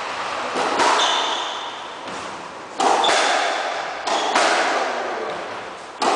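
Squash ball hits echoing in a glass-backed squash court: a sharp crack every one and a half to two seconds, each followed by a long ringing echo.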